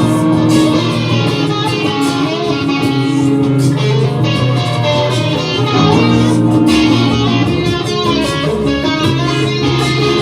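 Instrumental music led by a plucked electric guitar over a steady sustained bass, dense and continuous.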